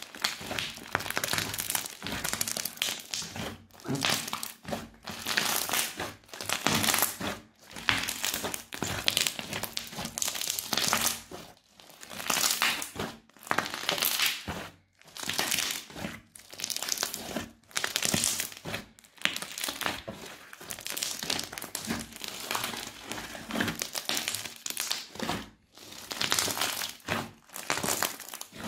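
Crunchy slime with small beads mixed in, kneaded and squeezed by hand: crunching in short repeated bursts, roughly one a second, with brief gaps between squeezes.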